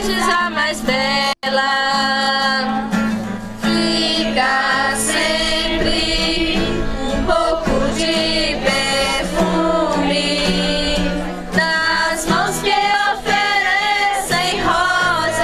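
Music: a song with singing voices over instrumental accompaniment, broken by a momentary dropout about a second and a half in.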